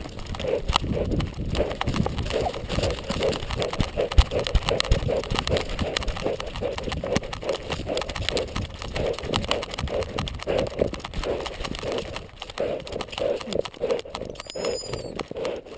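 Labrador retriever panting rhythmically, about three breaths a second, while carrying a shot pheasant in its mouth, heard close up from a collar-mounted camera with feathers and collar brushing against it.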